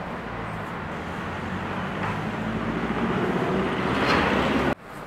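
Motorized pressure-sprayer pump running steadily, with the hiss of disinfectant spraying from the hoses, growing louder toward the end and cutting off suddenly just before it ends.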